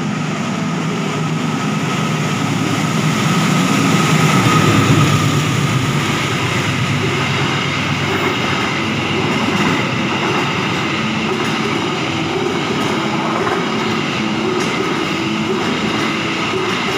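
Passenger train running past the platform, a steady rumble of wheels on rail with some clattering, loudest about four to five seconds in.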